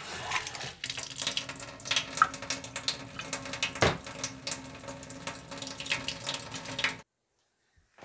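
Tap water running through a PUR faucet-mount filter and splashing steadily into a stainless steel sink, with the filter switched to filter mode. It cuts off suddenly near the end.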